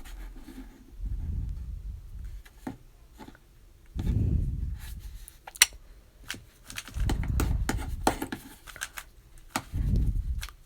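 Rubik's cube being turned by hand: repeated short plastic clicks and clacks of the layers, with several dull low bumps of handling in between.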